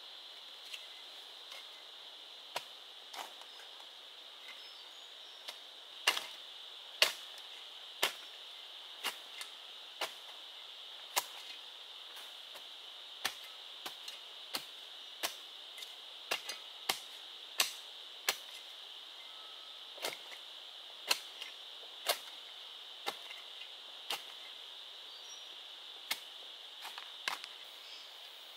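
Sharp knocking strikes, about one a second at irregular spacing and varying in strength, like a tool hitting wood. Behind them runs a steady high-pitched insect drone.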